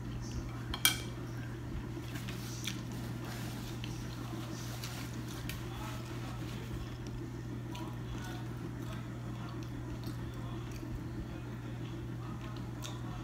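Metal fork clinking against a ceramic dinner plate: one sharp clink about a second in, then a few lighter taps, over a steady low hum.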